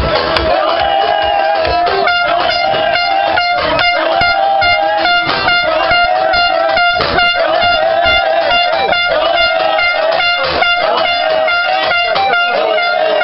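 Plastic stadium horns blown in one long, steady blare that runs on without a break, over voices and a regular beat of claps about twice a second from a celebrating group.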